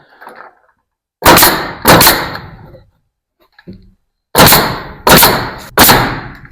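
Nail gun firing five shots into a wood board, two and then three, each a sharp crack with a short ringing tail.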